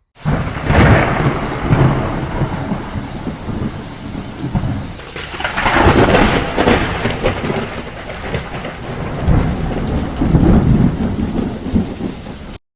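Rain falling steadily with rolling thunder, swelling three times, about one, six and ten seconds in; it starts and cuts off abruptly.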